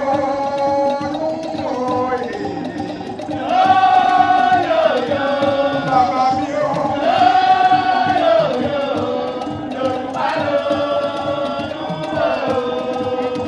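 A man's solo chanted singing through a microphone and PA, in long held phrases that bend in pitch, over steady hand-drum percussion.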